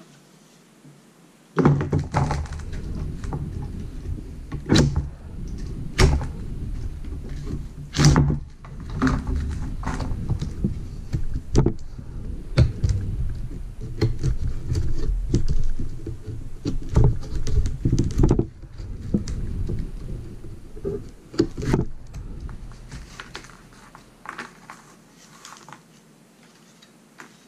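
Handling noise from stripping old cord out of a wooden canoe seat frame: an irregular run of knocks, thunks and rustling, with sharp clicks as the cord is cut with small snips. It starts about two seconds in and dies down to quieter handling near the end.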